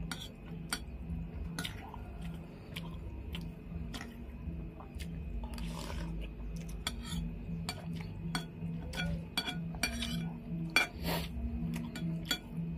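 Metal spoon and fork clinking and scraping against a ceramic bowl of rice, with chewing between mouthfuls. The sharpest clink comes about eleven seconds in.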